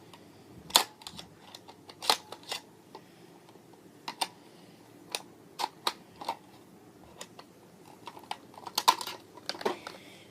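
Plastic toy parts clicking and knocking irregularly as the pieces of a Barbie gymnast toy set are handled and fitted together, with a few sharper snaps about a second in, around two seconds in and near the end.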